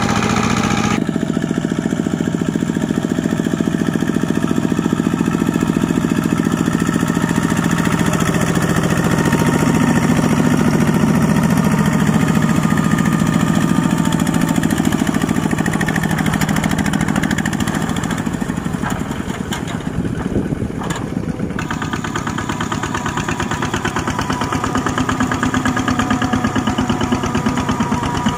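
Two-wheel walking tractor's single-cylinder diesel engine running steadily under load as it drags a trailer through deep mud.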